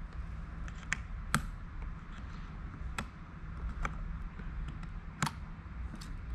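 Scattered small clicks and taps, about six in all, from tools and parts being handled during a Mac mini RAM upgrade, over a steady low hum.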